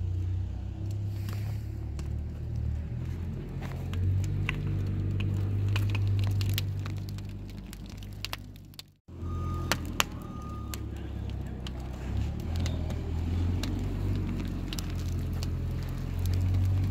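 Wood fire burning in a cut-open steel tank: a steady low rumble with scattered sharp crackles and pops from the burning scrap boards. The sound breaks off briefly about nine seconds in.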